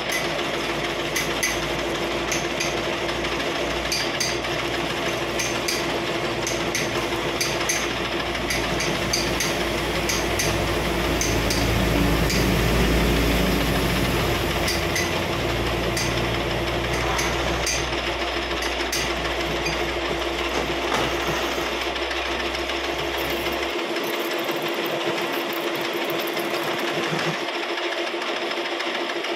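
Metal lathe running steadily, its chuck spinning a large cylindrical metal workpiece while the tool cuts it, with a constant hum and scattered light ticks. The low rumble underneath drops away near the end.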